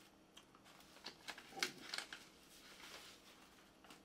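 Rustling and light clicks of a vinyl LP and its sleeves being handled. The sounds come in short bursts and are busiest a second or two in.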